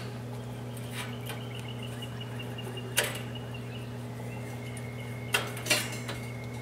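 Band blade of a homemade bandsaw mill being moved by hand along its blade guide. Sharp clicks come about three seconds in and twice near the end, over a steady low hum.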